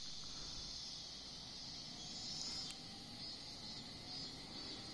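Steady high-pitched chorus of summer insects, with a faster pulsing insect call higher up from about the middle on and a single faint click near the middle.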